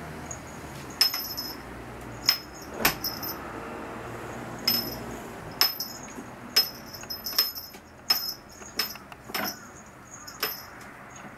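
A small bell jingling in about a dozen short, uneven jingles as a kitten bats and tugs at a hanging ornament.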